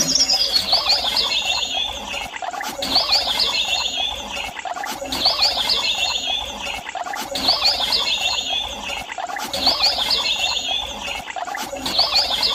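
Birds chirping: the same short twittering phrase repeats about every two seconds over a steady background chorus.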